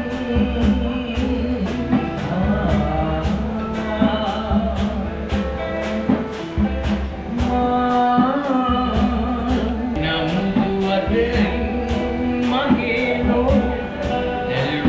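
Live band music: a man singing to acoustic guitar, with a hand drum keeping a steady beat.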